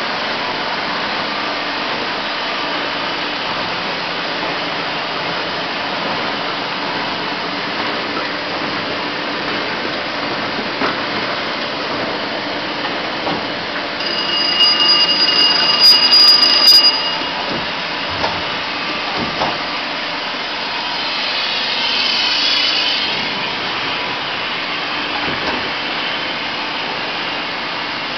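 Sheet-fed offset printing press running: a steady mechanical whir and clatter of rollers and feeder. About halfway through it briefly gets louder with a high steady whine, and a little later a wavering high hiss.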